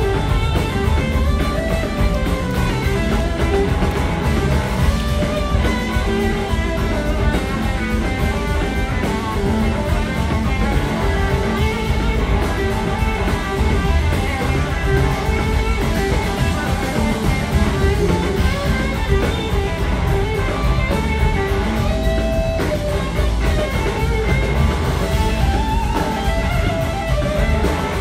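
A live rock band playing a blues-rock song, electric guitar to the fore over a drum kit, recorded from the audience in the hall.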